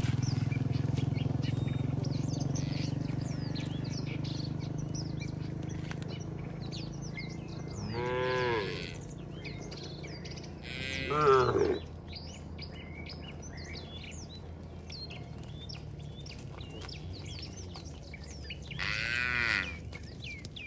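Cattle mooing three times as the herd walks, each moo a drawn-out call that rises and falls; the second is the loudest. Small birds chirp throughout, and a low steady hum fades out over the first few seconds.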